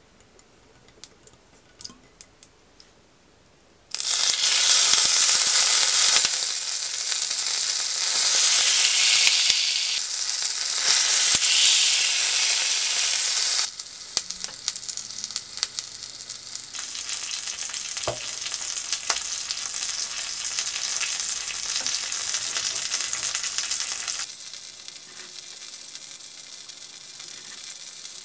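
Pollock roe (myeongran) frying in hot oil in a rectangular nonstick egg-roll pan. A few faint ticks come first, then a loud sizzle starts suddenly about four seconds in. The sizzle drops to a softer level about halfway through and eases once more near the end.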